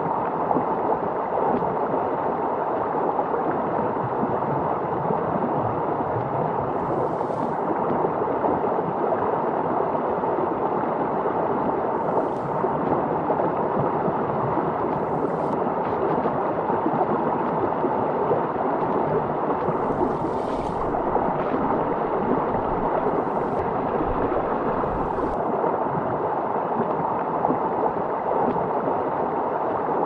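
Shallow rocky stream flowing and gurgling over stones in small rapids, a steady rushing. Now and then a short brighter hiss rises above it, about six times.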